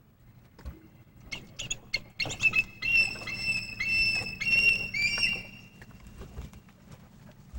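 A series of high-pitched squeaky animal calls, some held, with clicking and pattering among them, over a low steady hum.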